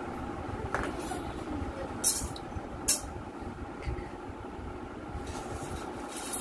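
Handling noise from work on an electric motor: a few sharp clicks and knocks, the two loudest about a second apart, as tools and plastic parts are put down and picked up on a concrete floor, over a steady mechanical background hum.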